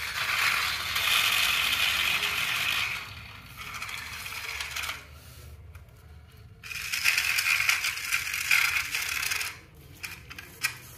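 Plastic toy vehicles' small battery motors and gears running with a rattly, clicking whirr. It comes and goes, dropping away in the middle and again near the end.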